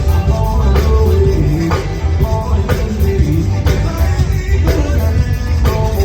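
Live zydeco band playing, with heavy bass and a steady beat under sustained melodic notes.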